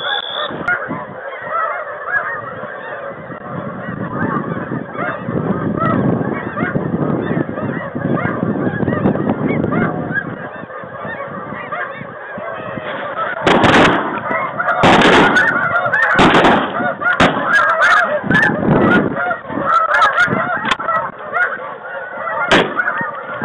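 A large flock of snow geese honking continuously overhead, a dense chatter of overlapping calls. In the second half come a few sharp bangs, louder than the calling.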